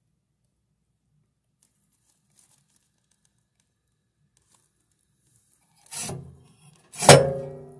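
Near silence, then about six seconds in two sharp knocks on the wood stove's metal flue collar, a second apart. The second is louder and leaves a brief metallic ringing.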